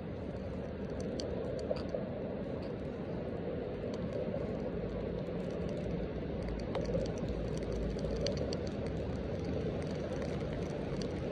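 Light rain pattering on a rain jacket right by the microphone: many small, irregular taps over a steady low rushing noise.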